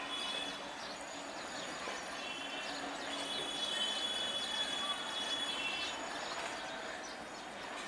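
Indian Railways EMU local train at a station platform, with a steady high whine that fades in and out over the noisy hubbub of the platform.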